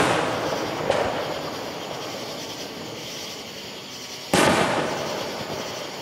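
Aerial firework shells bursting: a sharp bang about a second in, then a loud boom a little after four seconds, each fading away over a second or two.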